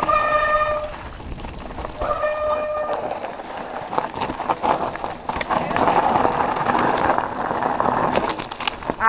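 A mountain bike coming down a rocky trail: tyres crunch and the bike rattles over loose stones with many small knocks. In the first second, and again about two seconds in, the bike gives a steady high-pitched squeal. Near the end there is a short rising squeak.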